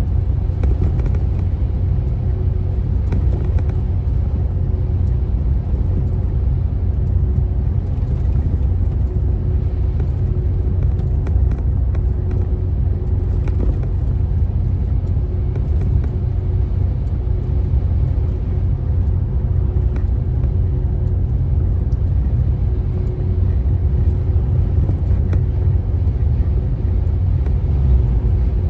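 Steady low engine and road rumble heard from inside a vehicle cruising on a highway, with a faint steady hum above it.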